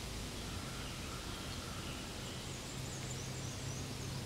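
Steady outdoor background noise with a low hum, and a few faint, high, quick chirps in the second half.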